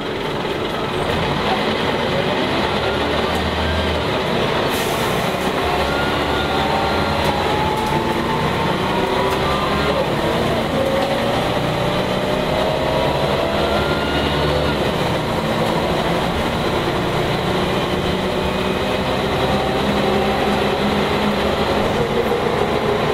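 Cabin sound of a Volvo B10L bus under way: its rear-mounted Volvo DH10A 9.6-litre six-cylinder turbo diesel runs steadily, and a whine climbs in pitch several times as the bus gathers speed.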